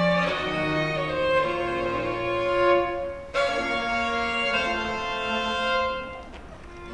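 Baroque chamber ensemble playing slow dance music: a baroque violin melody over a held, bowed bass line that steps down note by note. A new phrase enters with a sharp attack about halfway through, and the music softens near the end.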